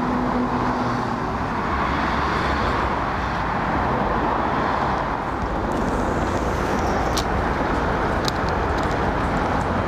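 Steady road traffic noise, an even rush of passing cars, with a few light clicks near the end.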